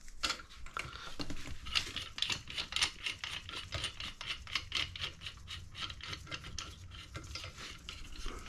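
Screw-type valve spring compressor being wound down and fitted onto a valve in a cylinder head: a quick, irregular run of small metal clicks and scrapes.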